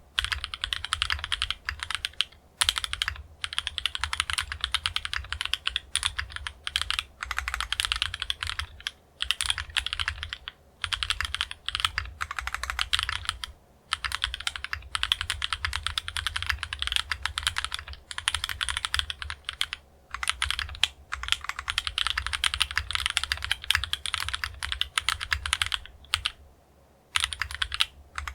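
Fast, continuous typing on a KMG B60 R1 custom mechanical keyboard with TTC Tiger linear switches, an aluminium plate and foam-dampened case, keys clacking in rapid runs with brief pauses between bursts, the longest about a second long near the end.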